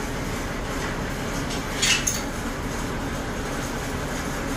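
Steady low rumble of outdoor background noise, with two short, sharp clicks close together about two seconds in.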